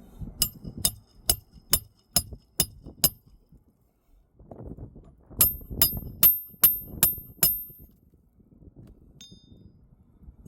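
A hammer tapping on a metal tool with sharp, ringing metallic strikes, in two runs of seven and then six blows, a little over two a second.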